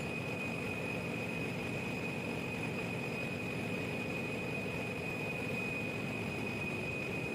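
Steady engine-room machinery noise from a large 18-megawatt power-plant generator engine kept running, with a constant high-pitched whine above the drone.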